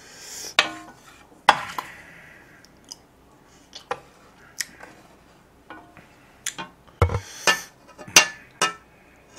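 A wooden ladle tapping and scraping against a metal pot and clinking on a plate as braised tofu and beef are dished out. Scattered sharp taps, some ringing briefly, come more thickly near the end.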